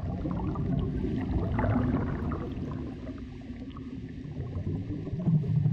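Gurgling, bubbling water over a low rumble, dipping in level midway and swelling again near the end.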